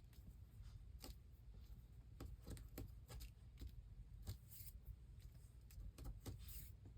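Faint crafting sounds: scattered soft clicks and light rustles of hands handling sari silk thread and paper on a journal page.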